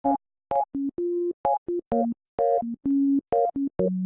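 Electronic synthesizer theme music: short, clipped notes and chords, about three a second, with brief silences between them.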